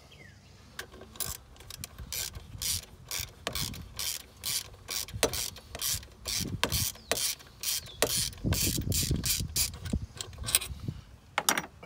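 Hand socket ratchet clicking in a steady run of sharp ticks, about three a second, as loosened 12 mm throttle body bolts are spun out.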